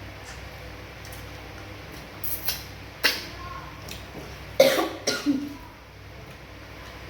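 A person coughing several times: a short cough or two, then the loudest run of three coughs about halfway through.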